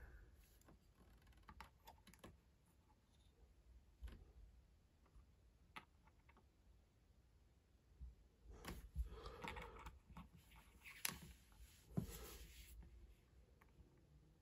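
Faint clicks and taps of plastic Lego minifigures being handled and set down on a tabletop. A few scattered ticks come first, then a busier run of clicks and handling noise in the second half.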